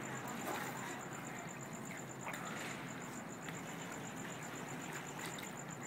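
Quiet indoor-pool background hiss with faint splashing from the swimmer's kick, under a steady high-pitched pulsing tone repeating several times a second.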